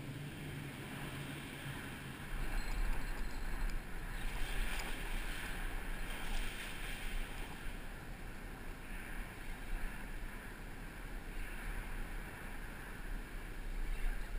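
Wind buffeting the camera microphone, a deep uneven rumble that starts about two seconds in, over a steady hiss of water along the rocks.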